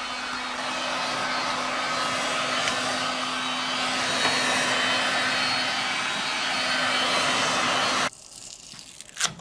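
DeWalt electric heat gun blowing steadily with a faint motor hum, heating a red vinyl decal on a truck door so it can be peeled off. The sound stops abruptly about eight seconds in, and a single click follows near the end.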